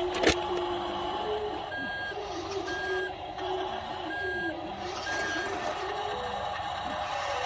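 Reversing beeper of a radio-controlled toy dump truck backing up: four short, even high beeps about a second apart, over a wavering motor whine. A sharp click sounds just after the start.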